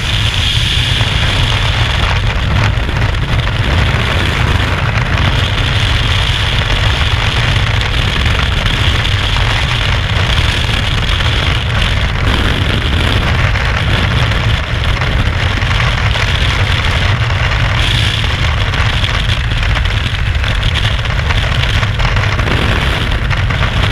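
Loud, steady rush of freefall wind buffeting the camera's microphone, a deep rumble under a hiss.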